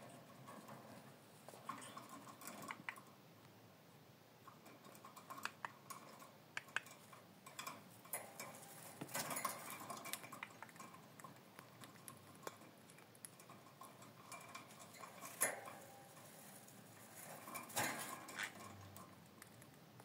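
Green-cheeked conure moving about its cage: scattered small clicks and taps of beak and feet on perch and wire bars, with a few short rustling scrapes. The sharpest tap comes about three quarters of the way through.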